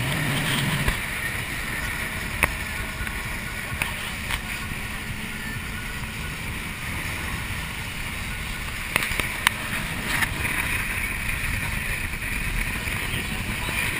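Speedboat running at speed on open water: a steady rush of engine and water noise, with a few sharp knocks.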